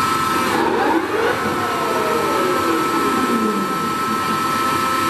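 Toolmex TUR 560 M engine lathe running with a steady high whine, as the spindle and chuck start turning and the headstock gearing changes speed, its whine sliding up and down in pitch during the first few seconds.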